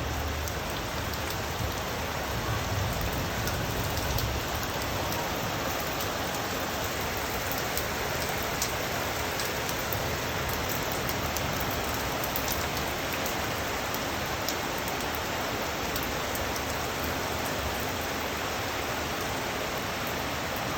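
Heavy rain pouring steadily, with scattered drops ticking close by.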